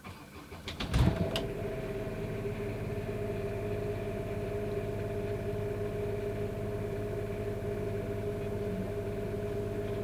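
The RV's onboard generator starting about a second in and then running steadily with an even hum, heard from inside the coach through an open window.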